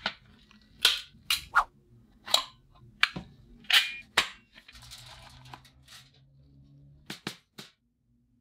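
Steel-frame caulking gun clacking as a silicone caulk tube is loaded into it and the trigger is worked: a dozen or so sharp clicks and knocks, with a short lull in the middle and three quick clicks near the end.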